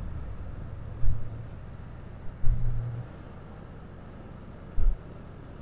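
Hero Splendor motorcycle's single-cylinder four-stroke engine running at cruising speed, with wind rumbling on the microphone. The low engine note swells briefly about a second in and again about two and a half seconds in, and a short low thump of wind comes near the end.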